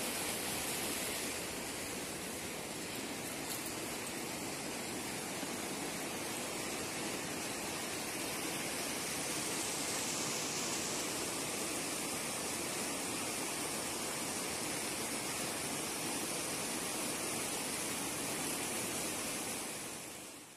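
Mountain river rushing over boulders in whitewater rapids, a steady roar of water that fades out at the very end.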